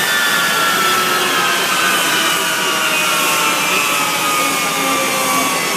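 Sukhoi Su-35 jet engines spooling down after shutdown: several high whines sliding slowly lower in pitch over a steady rushing hiss.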